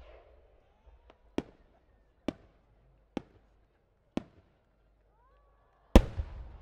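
Japanese aerial firework shell: a run of sharp cracks about a second apart, then a much louder boom about six seconds in that rumbles on.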